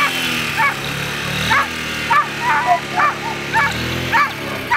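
A dog yipping excitedly: short, high yips about two a second. Underneath runs the steady hum of the lure-coursing machine's motor, which revs up about four seconds in.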